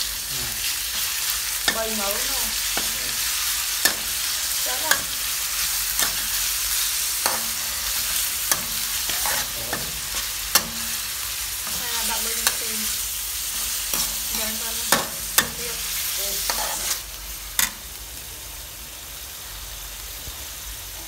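Sliced beef and garlic sizzling in a hot steel wok while being stir-fried, the utensil clicking and scraping against the pan again and again. Near the end the clicks stop and the sizzle settles to a quieter steady hiss.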